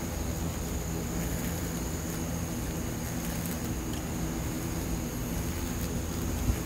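Steady droning buzz of insect wings, Asian giant hornets and honeybees at a beehive, with a thin high whine above it and a brief bump near the end.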